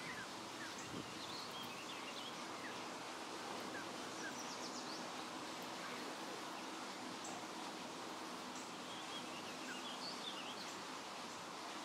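Outdoor ambience: a steady hiss of background noise with faint, scattered short, high chirps from birds.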